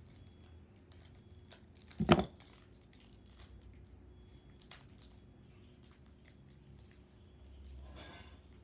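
Foil Pokémon booster pack wrapper being torn open and handled: faint crackling and crinkling throughout, a single loud thump about two seconds in, and a louder rustle of the foil near the end.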